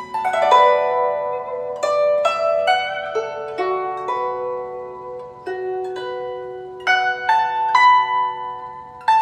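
Background instrumental music played on plucked strings. A quick rippling run of notes opens it, then a slow melody follows, each note ringing and fading before the next, with a louder group of notes about seven seconds in.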